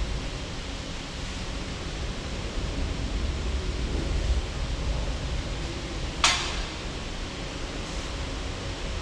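Steady rushing workshop background noise, with a single sharp knock about six seconds in as something is set down on the workbench.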